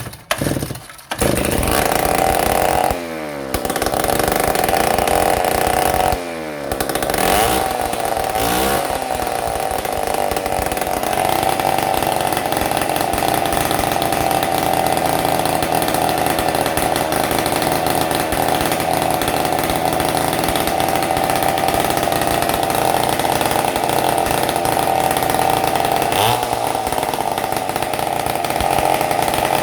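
Stihl 070 two-stroke chainsaw engine running loud with no muffler. Twice in the first seven seconds the revs fall away and climb back. It then holds steady at high revs, no longer sputtering after its new points and condenser.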